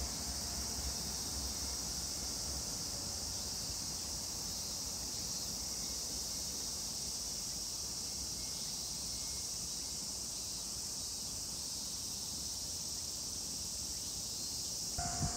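Steady, high-pitched chorus of summer insects.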